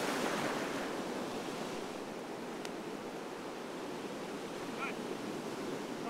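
Ocean surf breaking and washing in over shallow water: a steady rush of waves, a little stronger about the first second.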